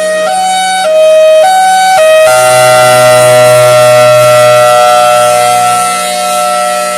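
Federal Signal Thunderbolt 1003 mechanical outdoor warning siren sounding its hi-lo signal: two pitches alternate about every half second, then about two seconds in it holds a single loud steady tone that sags slightly in pitch.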